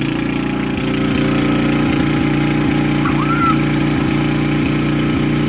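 Small engine of a Bolens ride-on lawn tractor running steadily, a little louder from about a second in.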